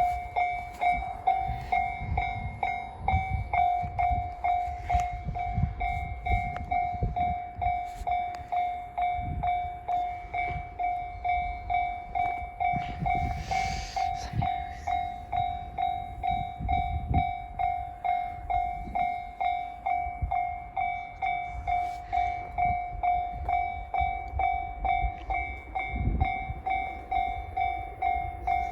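Japanese railway level crossing warning bell ringing: a steady electronic ding repeating about twice a second, with an irregular low rumble underneath.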